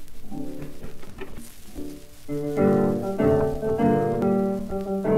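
Instrumental introduction of a 1934 Pathé 78 rpm record, accordion and piano playing a waltz-song accompaniment. The playing is soft at first and grows louder about two seconds in, with held accordion chords.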